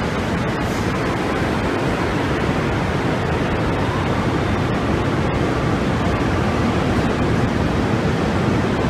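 Metro train running through an underground station: a steady rush of wheel and traction noise with no distinct clanks or tones.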